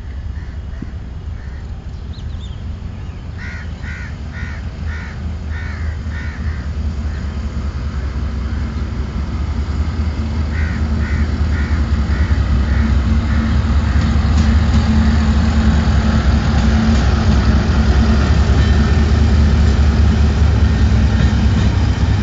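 Diesel locomotive hauling a train of flat wagons, approaching and passing close by. Its engine and the rumble of the wheels on the rails grow steadily louder and stay loud from about two-thirds of the way in. Crows caw in short runs of calls in the first half.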